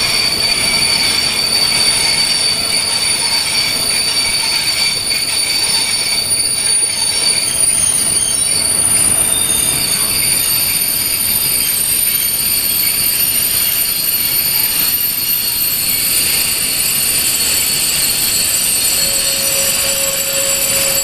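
Train wheels squealing against the rails: a loud, continuous high-pitched squeal made of several held tones, steady in level throughout.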